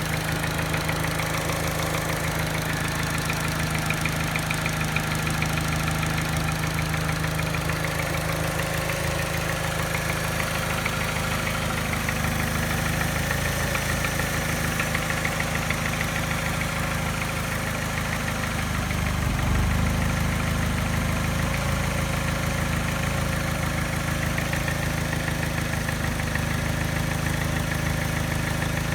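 Mini car engine idling roughly with a light, steady tap and a slight miss. The owner notes the tap disappears above 1200 rpm and has persisted after the timing chain, tensioner and piston rings were replaced. The engine note swells briefly about two-thirds of the way through.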